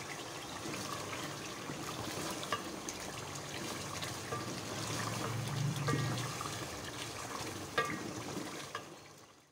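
Beef and tomato stew bubbling in an aluminium pot while a wooden spoon stirs it, with a few light clicks of the spoon against the pot. Fades out near the end.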